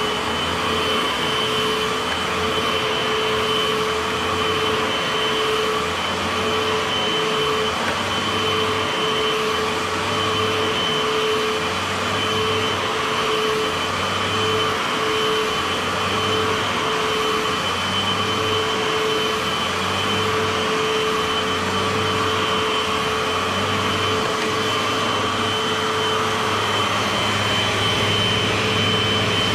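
Eureka AirSpeed Pet Rewind upright vacuum running steadily with a constant whine, pushed back and forth over carpet, with a low pulse about every two seconds from the strokes. It is set to the high-carpet height because its brush roll slows on low carpet; the owner says it needs a new belt.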